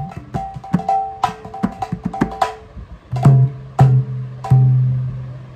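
Mridanga drum played by hand: a quick run of crisp, ringing strokes on the small treble head, then three deep bass-head strokes about half a second apart in the second half, the last one ringing out and fading.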